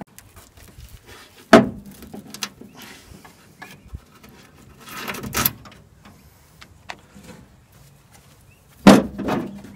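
Pliers and metal parts clicking and knocking against the steel front body of a 1966 VW Beetle as its wiring is taken out. There is a loud clank about a second and a half in that leaves a short low ring, and another loud knock near the end.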